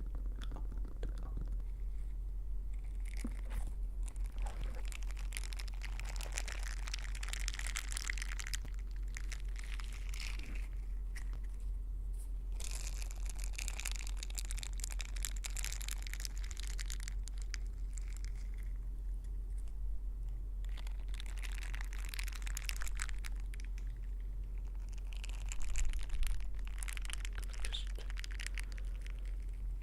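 ASMR ear-cleaning sounds: an ear-pick tip scratching and rustling against the microphone, crackly and crinkly, in four stretches of a few seconds each with short pauses between. A steady low hum runs underneath.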